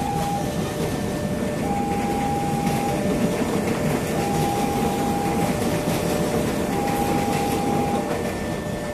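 KRL commuter electric train running past close by, a steady dense rumble of wheels on rail. Over it a level-crossing warning alarm sounds in two tones, high and low alternating about once a second.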